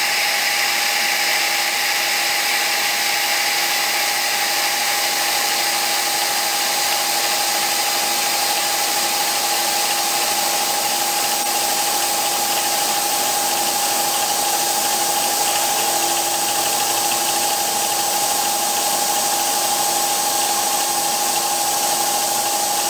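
CNC milling machine running steadily as an end mill cuts the rear-sight relief pocket into a pistol slide: a constant whine with a steady high hiss over it.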